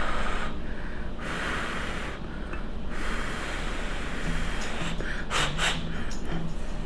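A person's breathing while eating hot pasta: several breathy puffs and inhales, with a few sharp clicks about five seconds in.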